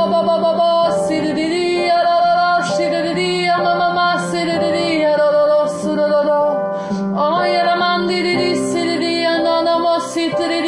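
Piano playing slow sustained chords, with a voice singing a wordless, gliding melody over them.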